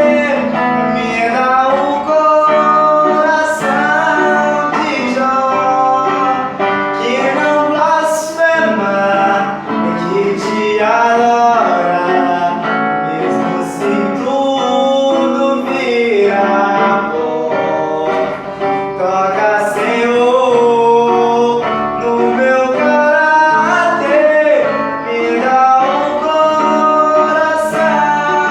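A man singing a Portuguese-language gospel song with guitar accompaniment, the melody held and continuous without breaks.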